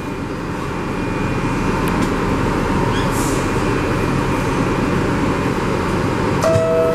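New York City subway train running with a steady rumble. Near the end a clear tone sounds, the first note of a descending two-note door chime.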